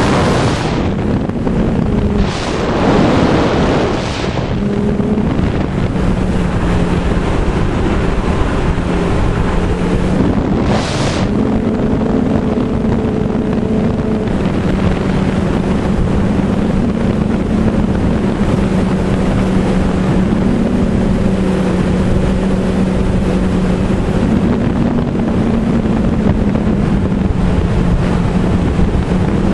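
Wind rushing over the microphone while moving fast downhill, over a steady droning hum that wavers a little in pitch, with a few louder gusts of wind in the first few seconds and once about eleven seconds in.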